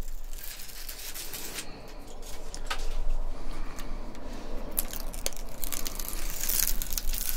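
Paper backing being peeled off double-sided tape, a crackly tearing rustle with scattered small clicks, loudest near the end.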